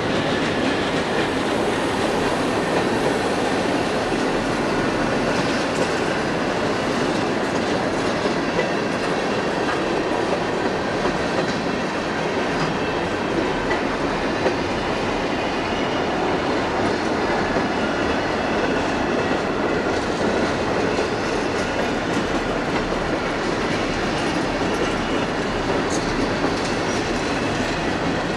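Freight train cars rolling steadily past, steel wheels clacking over rail joints, with a faint wheel squeal.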